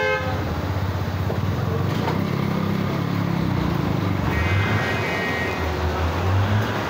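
Road traffic: vehicle engines running close by, swelling louder near the end, with a short high steady tone about four and a half seconds in.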